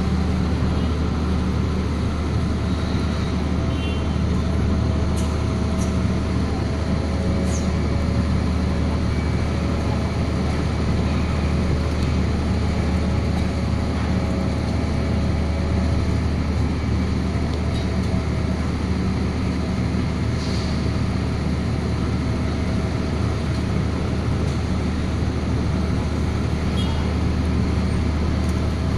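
A motor engine running steadily at a constant speed: an unchanging low drone with a few faint clicks over it.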